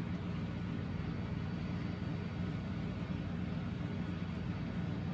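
Steady low hum of background room noise, such as a fan or air handler running, with no distinct events.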